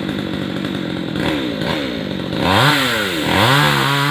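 Two-stroke chainsaw engine idling steadily, then revved up and down several times from about a second in, with the revs rising higher about two and a half seconds in.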